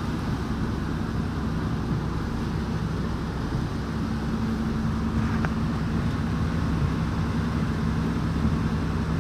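Vehicle engine running steadily with a low hum, under a constant wash of road or water noise.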